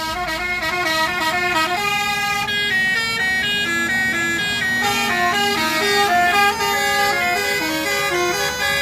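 Tour bus's Basuri musical air horn (klakson telolet) playing a fast melody, the notes stepping up and down several times a second without a break.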